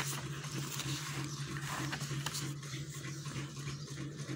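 Paper handling: a few faint rustles as notebook pages are moved, over a steady low hum.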